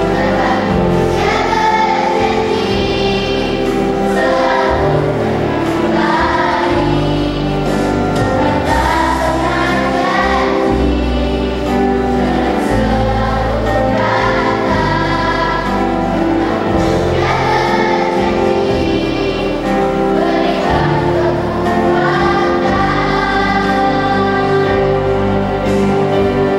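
Children's choir singing an Indonesian pop song in unison, over an instrumental accompaniment with a steady bass line.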